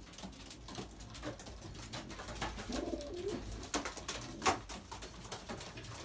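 Racing pigeons cooing softly in a small loft, with scattered light clicks and taps and one sharper click about four and a half seconds in.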